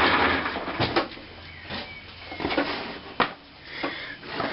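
Handling noise while an oscilloscope's power lead is plugged in: about a second of rustling and scraping, then a few sharp clicks and knocks, the sharpest a little past three seconds in.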